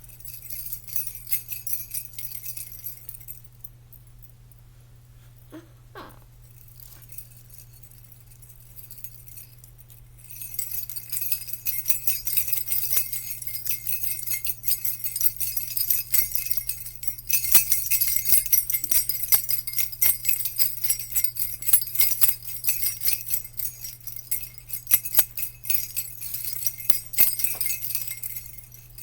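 Small jingle bells being shaken, a dense bright jingling. About three seconds in it stops for roughly seven seconds, then starts again and gets louder and busier until it stops right at the end.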